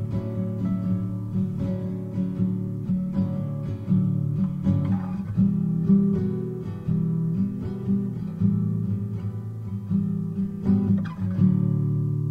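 Background music: a plucked acoustic guitar picking a gentle melody, settling near the end on a held chord that rings and slowly fades.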